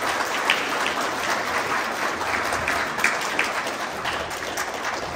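Audience applauding in a hall, slowly dying down toward the end.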